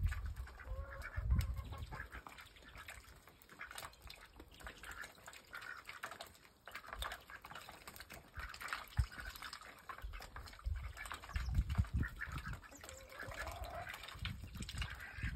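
Indian Runner ducks calling and dabbling at a food dish, with a few low rumbles near the start, about twelve seconds in and at the end.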